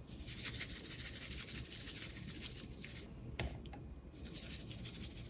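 Soft rubbing and scratching of hands handling food on a work surface, with one small click about three and a half seconds in.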